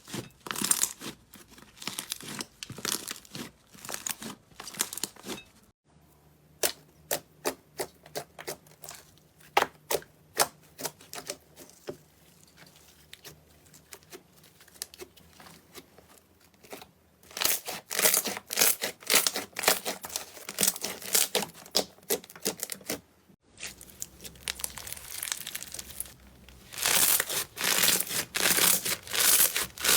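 Slime being pressed and worked by hand, making rapid sharp crackles and pops. The crackles are scattered at first, then come in dense runs of crackling in the second half, across several short clips cut together.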